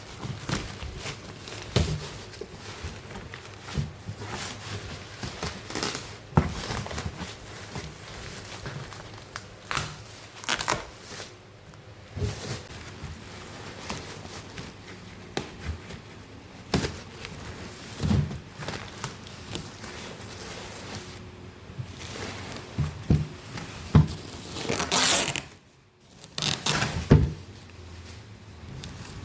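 Crinkling and crumpling, as of packaging or plastic being handled, among irregular knocks and clicks of objects being picked up and set down. A longer rustling burst comes near the end.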